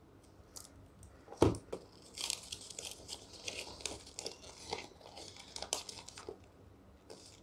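A folded paper instruction leaflet being unfolded and handled, crinkling and rustling for a few seconds. This follows a single sharp knock about a second and a half in.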